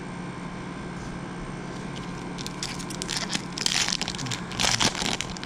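Foil wrapper of a Topps football card pack crinkling and tearing open, in short crackly rips through the second half, the loudest two a second apart near the end.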